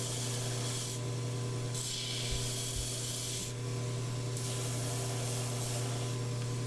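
Grizzly G1015 knife blade belt sander running with a steady hum while a maple handle block is pressed against the belt. Three passes of a few seconds each give a hissing sanding sound.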